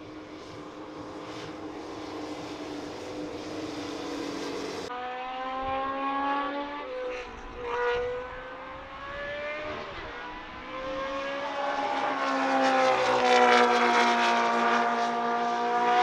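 Tyrrell 002's Cosworth DFV V8 racing engine running on track, its pitch falling and climbing through gear changes and growing steadily louder as the car approaches, loudest near the end. There is an abrupt change in the sound about five seconds in.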